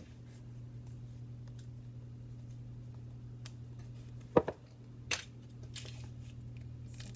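Small handling noises over a steady low hum, with a sharp knock a little past four seconds in and a softer one about a second later.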